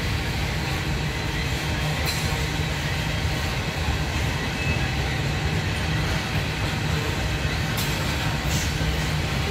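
Loaded coal hopper cars of a long freight train rolling past with a steady low rumble, with a few faint metallic clicks about two seconds in and near the end.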